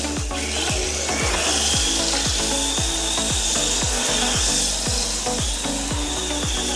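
Background music with a steady electronic beat: deep kick drums that fall in pitch, about three a second, over held bass notes.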